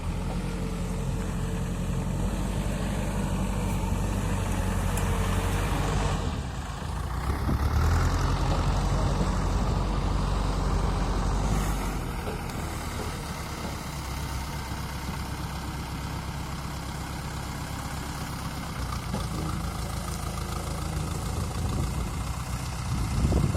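Diesel engine of a JCB 3DX backhoe loader running steadily. It works harder and louder from about eight seconds in, then eases back to a lower, steady running note after about twelve seconds.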